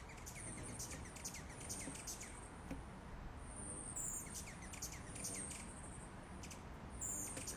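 Hummingbird giving faint, repeated high-pitched chirps and buzzy squeaks in short bouts, over a soft steady background hiss.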